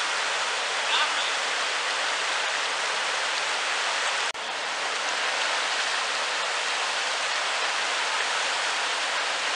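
Flooded river rapids rushing over rock: a steady, even noise of whitewater, broken by a momentary dropout about four seconds in.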